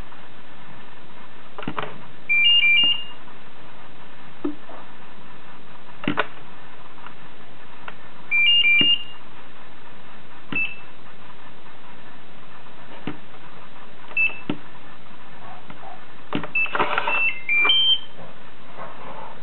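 Milre digital door lock beeping: single short beeps and two quick chirp sequences of alternating tones as digital keys are tapped on its sensor and registered, with a few sharp clicks between. Near the end a short tune of falling then rising tones plays over a burst of mechanical noise as the lock unlocks.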